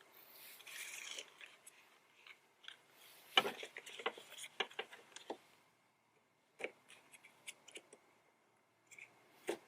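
Faint handling noises of small car-interior parts and wiring: scattered light clicks, rubs and scrapes, with a soft rustle just under a second in and a cluster of clicks about three to five seconds in.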